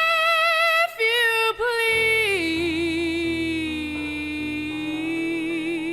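Female voice singing over instrumental accompaniment: a high held note, a short break about a second in, then a falling phrase that settles into a long lower note with vibrato.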